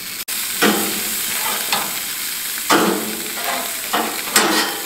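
Sausages, steaks and corn cobs sizzling on a gas grill, with several sharp clacks and scrapes as metal tongs turn the food on the grate.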